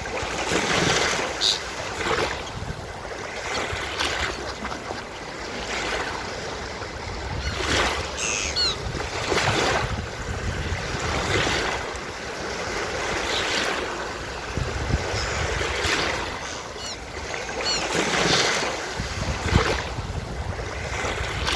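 Surf washing onto a beach, swelling and falling every couple of seconds. Seagulls call briefly a few times: once near the start, a short run in the middle, and again near the end.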